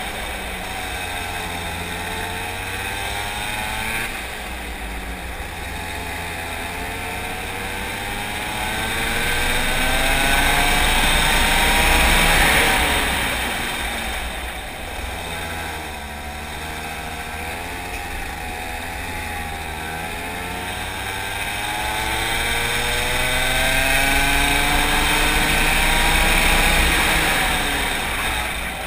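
Racing kart engine heard from on board through a lap, the revs climbing steadily along the straights and falling away into the corners. There are two long rises, the first peaking about twelve seconds in and the second near the end.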